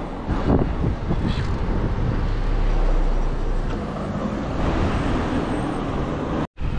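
Wind and road noise while riding an electric mountain bike along a road: a steady rush, strongest in the low end, that cuts out for a moment near the end.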